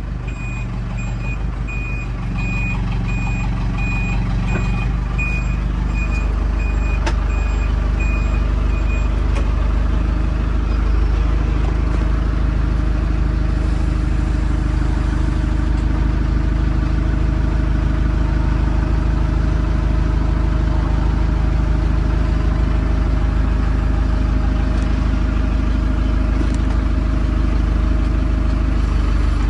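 Backhoe loader's diesel engine running under throttle as it reverses, its reversing alarm beeping steadily until about nine seconds in, when the beeping stops. The engine picks up a couple of seconds in and keeps running louder to the end.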